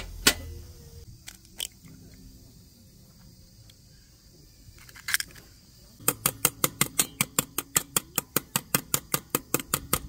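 Metal chopsticks beating eggs in a stainless steel bowl: quick, even clicking about six times a second, starting about six seconds in. Before that, a few separate knocks and clicks of a stainless tabletop panel being handled, the loudest just after the start.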